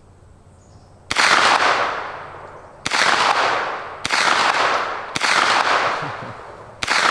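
Five single shots from a SIG MPX 9mm pistol-caliber carbine, a little over a second apart at an uneven pace, each echoing and dying away before the next.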